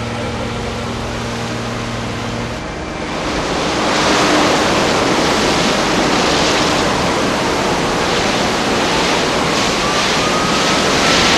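Bushfire flames burning through trees with wind, a loud rushing noise that swells about three seconds in. Under the first few seconds there is a low steady hum, and a faint tone slowly rises and falls.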